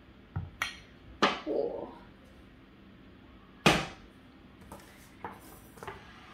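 Kitchenware being handled and set down: ceramic mugs, a stainless steel pot and a wooden chopping board knocking on the counter and hob. There are several sharp knocks, the loudest about a second in and just before four seconds in, with lighter knocks near the end.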